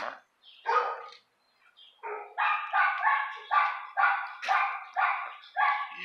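A dog barking over and over in a steady run of about two or three barks a second, starting about two seconds in, with one single bark just before.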